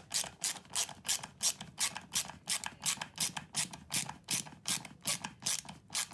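Ratchet screwdriver being worked back and forth, each stroke a short rasp of pawl clicks, about three strokes a second in a steady rhythm.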